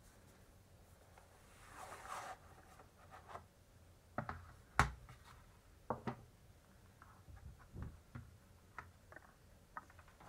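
Hands handling a cloth-bound basswood box and the paper booklets inside it: a soft brushing rustle about two seconds in, then scattered light knocks and clicks as the box is set down and opened, the sharpest a little before five seconds in.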